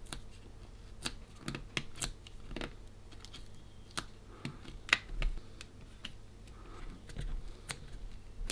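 Scattered light clicks and taps, irregularly spaced, from small parts of the opened electronic thesaurus being handled and worked on, with a couple of faint short scrapes.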